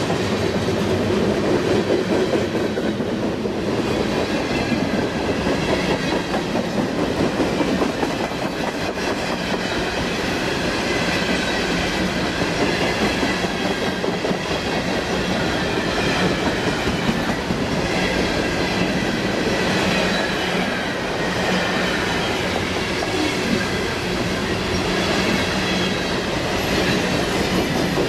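Freight cars rolling steadily past at close range, with a continuous rumble and clatter of steel wheels on the rails.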